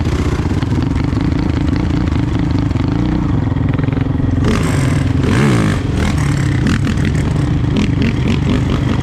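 Honda TRX450R ATV's single-cylinder four-stroke engine running steadily, revved up and back down about five seconds in.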